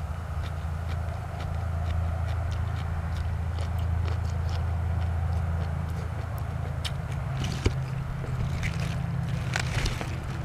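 Chewing and small mouth clicks of eating over a steady low hum, whose pitch shifts slightly about three-quarters of the way through.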